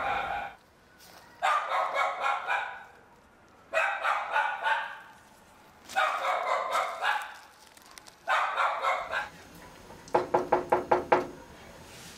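A dog barking in quick runs of several barks, five runs about two seconds apart, then near the end a faster string of about seven short, sharp sounds.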